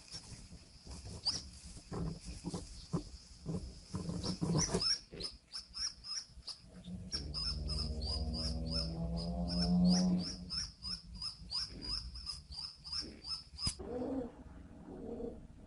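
Baby pigeon (squab) squeaking in quick, high-pitched peeps, about three a second, with scattered clicks. In the middle a lower, drawn-out pitched sound swells and fades, and the peeps stop abruptly near the end.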